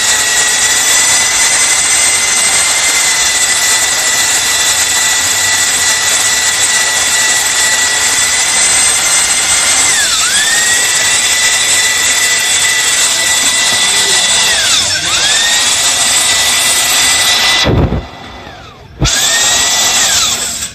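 Electric drill spinning a hone inside an engine block's cylinder sleeves, polishing (honing) the bores. It runs with a steady high whine, dips in pitch and recovers twice as it slows under load, stops, then runs once more briefly before stopping.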